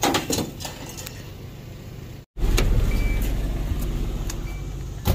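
A brief clatter of knocks, then after a cut a pickup truck's engine running close by: a steady low rumble that slowly fades.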